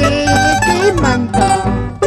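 Live Andean string-band music: a mandolin and an acoustic guitar playing together with an electric guitar, a run of plucked notes over a steady bass.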